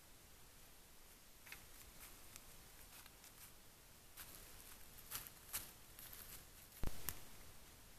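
Deer moving over dry leaf litter: faint scattered rustles and clicks over a quiet hiss, with one sharper knock about seven seconds in.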